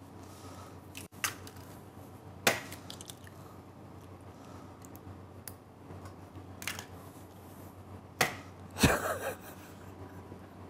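Eggshells cracked and broken apart by hand while eggs are being separated: a few sharp cracks and crunches, loudest about a second in, about two and a half seconds in and just after eight seconds.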